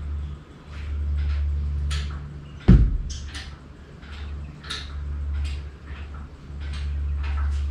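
Scattered metal clinks and squeaks as a Chevrolet 350 V8 hanging from an engine crane is shifted by hand, with one sharp knock a little under three seconds in, over a low rumble.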